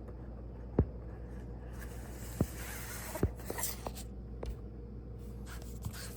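Handling of cardboard packaging: a few short knocks and some scraping and rustling as an Apple Pencil is put back into its box.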